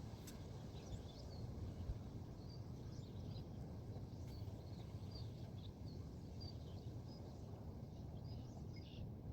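Small birds chirping on and off, short high calls, over a steady low rumble of breeze on the microphone.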